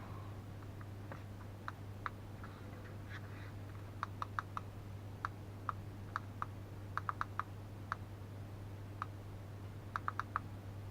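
Light, irregular clicks, some in quick runs of three or four, over a steady low hum.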